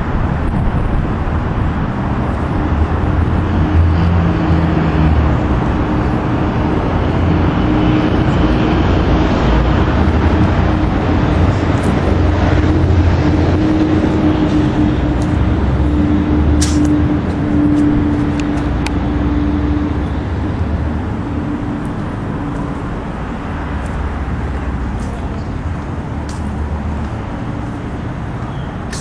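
Road traffic running past, a steady rumble with a low engine hum that swells after a few seconds and eases off after about twenty seconds.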